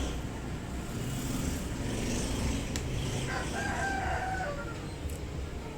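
A rooster crowing once, starting about three seconds in and lasting a little over a second, over a steady low rumble.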